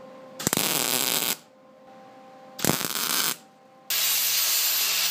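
Two short bursts of MIG welding crackle, tack-welding a steel motor-mount plate to the frame. About four seconds in, an angle grinder starts grinding steel with a steady hum under the noise.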